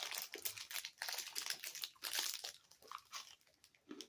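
Crinkling and crackling of a plastic snack wrapper being torn open and handled, thinning out to a few scattered crackles after about two and a half seconds.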